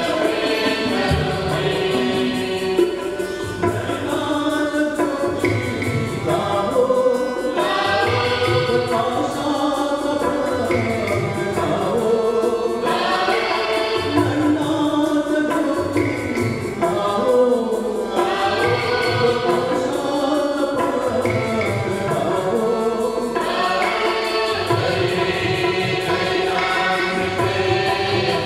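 Choir singing a hymn in repeated phrases of a few seconds each, over a low accompaniment.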